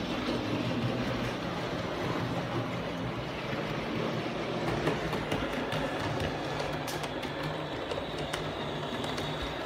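Model train running on the layout's track: a steady whirring with faint clicks of the wheels over the rail joints.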